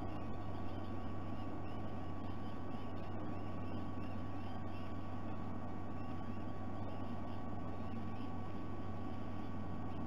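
Steady electrical hum and hiss from a nest-cam microphone, with faint, short high chirps repeating throughout.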